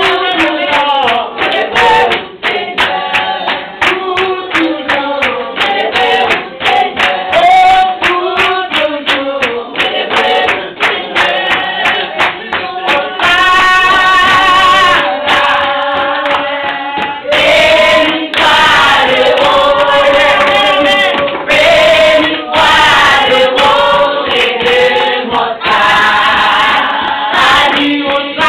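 A group of women singing a worship song together with steady rhythmic hand clapping; the clapping thins out for a few seconds midway and then picks up again.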